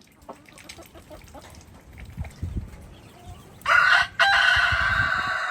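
Rooster crowing once, a loud drawn-out call that starts about two-thirds of the way in, with a brief break just after it begins. Before it, only faint clicks and low rumbling.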